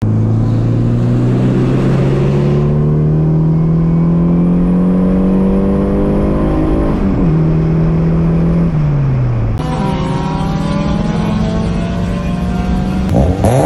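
Car engine heard from inside the cabin, pulling hard under acceleration, its pitch climbing steadily. About seven seconds in it drops sharply at an upshift, then climbs again in the next gear.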